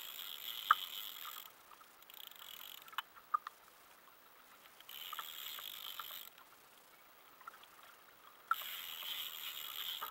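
Water splashing and sloshing beside a fishing kayak in spells of a second or so, with a few sharp clicks and knocks from the rod and tackle, while a hooked corvina is played at the surface alongside the hull.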